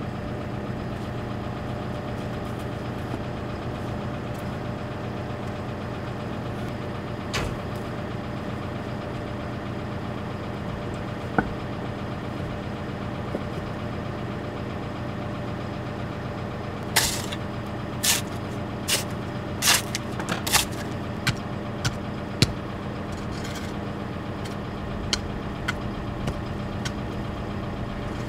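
A machine's engine idling steadily. About two-thirds of the way through comes a quick run of sharp knocks and clacks, the hardest of concrete blocks and hand tools being set and struck in the trench.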